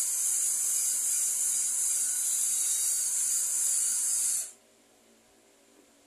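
Cordless drill spinning a fan motor's rotor shaft while fine 600-grit wet sandpaper and penetrating oil polish crust and scratches off it: a steady high hiss that cuts off abruptly about four and a half seconds in.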